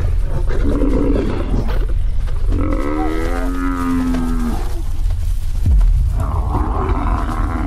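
An African buffalo bellowing in distress while lionesses hold it down, with one long, drawn-out bellow about two and a half seconds in. It is joined by rougher growling calls before and after the bellow.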